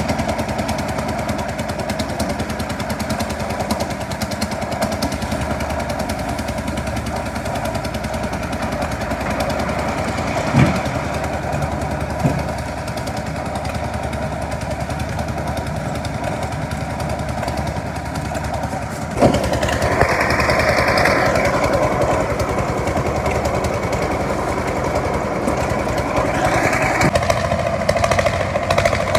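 A concrete mixer-loader's engine runs steadily with a fast, dense chugging beat. There are a couple of sharp knocks about a third of the way in, and the sound grows louder and harsher about two-thirds in.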